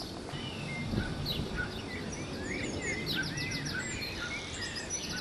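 Songbirds singing: scattered high chirps and short warbling phrases, with a quick trill about three seconds in and a rapid buzzy series of notes near the end.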